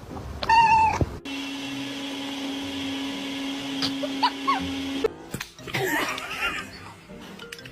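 Domestic cat meowing: one drawn-out meow about half a second in, then fainter short cat calls over a steady low hum.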